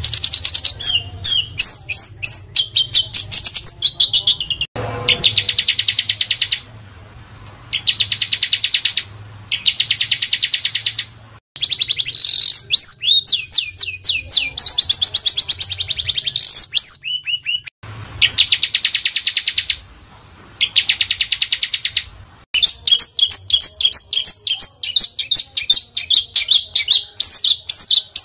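Recorded small songbird song of the kind played to train fighting or contest birds: very fast, dense, harsh high-pitched trills in bursts of a second or two, separated by short pauses, mixed with quick sweeping whistled notes.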